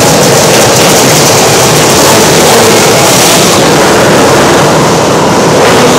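Several winged dirt-track karts racing past with their small engines running, a loud and steady blended engine noise heard inside a covered arena.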